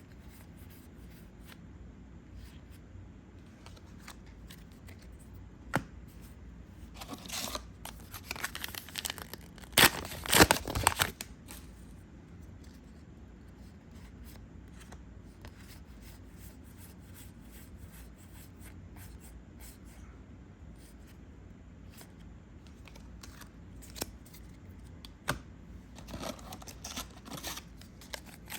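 Foil trading-card booster packs being torn open and their wrappers crinkled, in two stretches: about seven to eleven seconds in, loudest near the tenth second, and again near the end. In between, quiet handling with a few light clicks as cards are moved.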